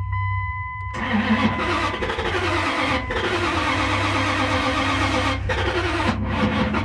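Starter cranking the 1998 Dodge 1500's 5.9 V8 over and over without it catching, with a few brief breaks; the engine won't start. A steady electronic tone sounds for about the first second before the cranking begins.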